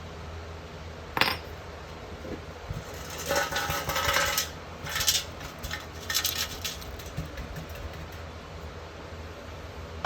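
Small metal pieces clinking and clattering: a sharp click about a second in, then several short runs of jangling in the middle, over a steady low hum.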